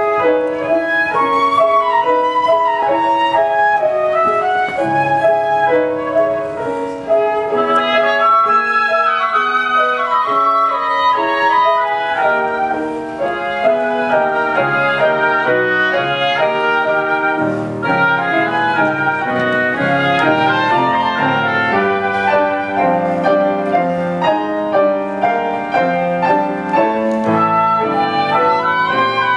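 Live flute melody with a second woodwind, over lower notes underneath in a classical style.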